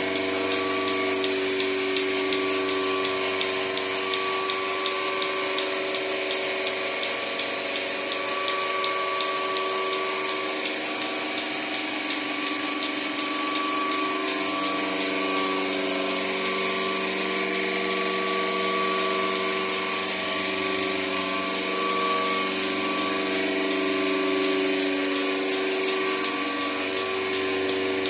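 Milking machine's electric vacuum pump running steadily: a level hum made of several held tones over a hiss.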